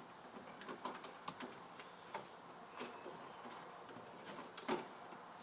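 Faint, irregular light clicks and taps of a fuel fitting being fumbled and turned against its port in a fuel cell, with a louder pair of clicks near the end.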